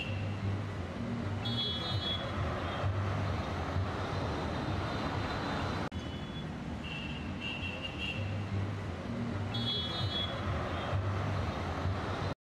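Steady background ambience: a low rumble and hum with short high-pitched beeps now and then. The same stretch of sound comes round again about eight seconds later, as a looped bed.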